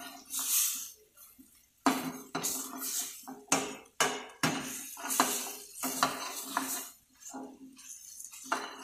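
Metal ladle scraping and knocking against a stainless steel frying pan while stirring penne in a thick cheese sauce, in irregular clanks and scrapes with the pan ringing briefly after the knocks. A short lull comes about a second in, then the stirring picks up again.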